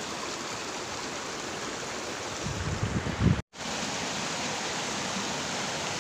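Shallow rocky stream rushing steadily. A few low thumps come about two and a half to three seconds in, then the sound cuts out for a moment before the rushing resumes.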